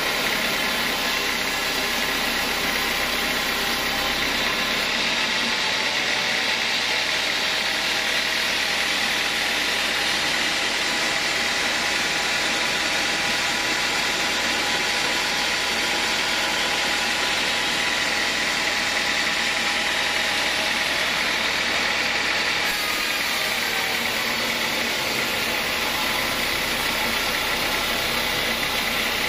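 Band sawmill running steadily, its blade cutting lengthwise through a hard acacia log, with the motor and blade noise holding an even level throughout.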